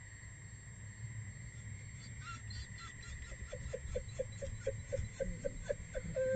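Red wolves whimpering in a fast run of short squeaky calls, about four or five a second, that start about three seconds in: the excited greeting of pups whose parent is arriving with food.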